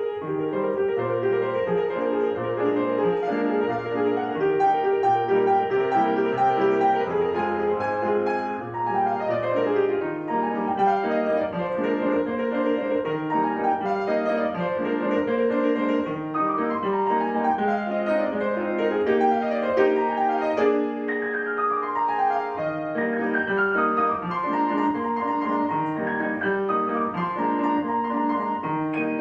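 Solo piano playing a classical piece, with fast runs of notes cascading downward several times.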